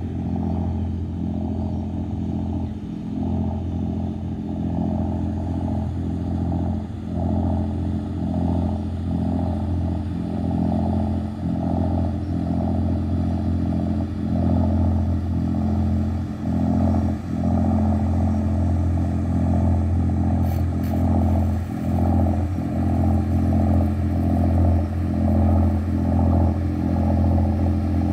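Engine of a mock pirate ship boat running steadily as it approaches: a low, even hum with a regular pulsing beat, growing slightly louder.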